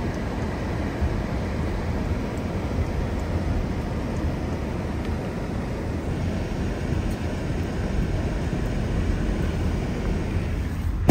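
Steady low road and engine noise of a car driving slowly on a wet road, heard inside the cabin.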